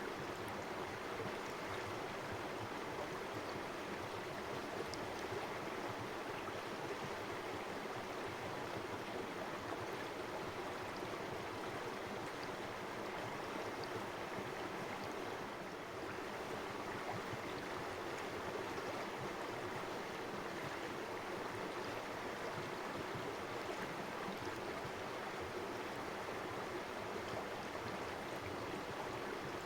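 Shallow river or creek water running steadily, a continuous rushing with faint splashes and trickles.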